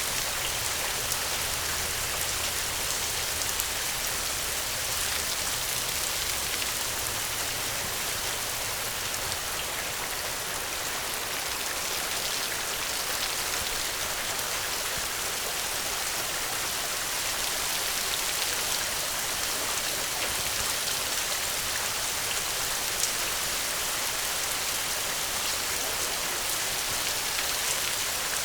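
Steady rain falling, a dense hiss of drops with scattered individual drop ticks.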